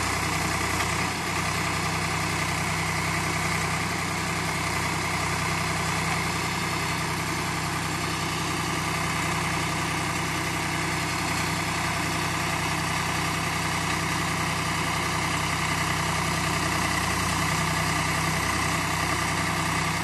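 Tractor diesel engine running steadily at an even speed while it drives a rear-mounted JAYCEE Soil Master backhoe digging soil.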